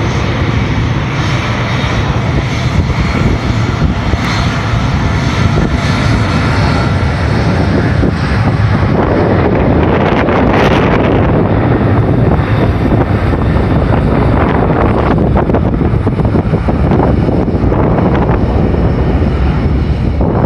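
Jet airliner engines at takeoff power: a loud, steady noise that grows louder and fuller about nine seconds in and holds.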